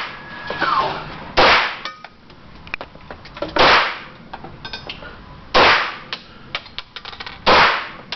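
Four pistol shots about two seconds apart, each with a short echoing tail, with light metallic clinks between them.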